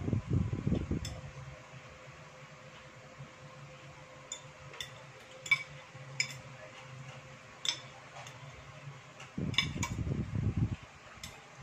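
Metal spoon and fork clinking and scraping against ceramic plates and bowls, about ten light clinks spread through the middle. Close-up chewing comes at the start and again near the end, over a steady low hum.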